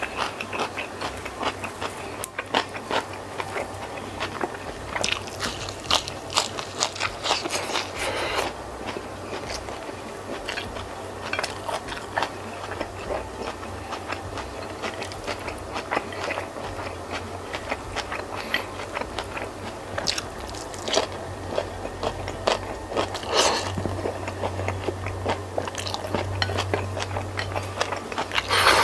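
Close-miked chewing and biting of a hand-eaten meal of cuttlefish in chilli sambal, rice and raw kenikir greens: irregular crunchy bites, wet mouth sounds and small clicks.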